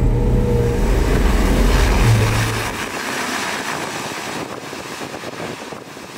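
Atlas amphibious all-terrain vehicle's Renault-Nissan engine running under throttle with a deep steady hum, which drops away after about two and a half seconds. A steady rush of water spray and slush from the big low-pressure tyres follows as the vehicle drives into the river.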